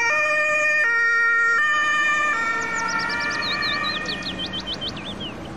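Two-tone emergency-vehicle siren of an ambulance, switching between a high and a low pitch about every 0.8 s, fading away after a couple of seconds. In the second half a quick run of short, high chirps sounds over it.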